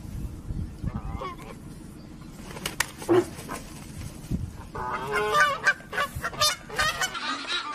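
Canada geese honking, with scattered calls at first and then a fast run of loud honks in the second half, as a goose squares up to and lunges at cattle.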